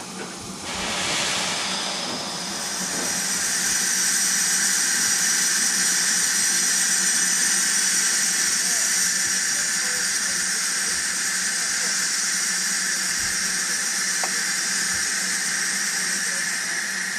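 Steam locomotive, the LNER Q6 0-8-0 No. 63395, letting off steam with a loud hiss. It breaks out suddenly about a second in, then swells into a steady, high-pitched hiss that holds.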